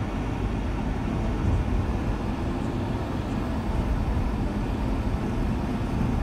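A car driving, heard from inside the cabin: a steady low rumble of engine and tyre noise on the road.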